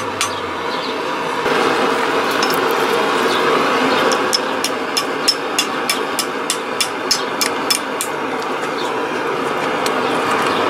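Hand hammer striking a hot steel flint striker on an anvil: a single blow at the start, then a run of ringing blows about three a second through the middle, thinning out near the end, as the end is bent into a loop. Underneath is the steady rush of a propane forge burner, louder from about a second and a half in.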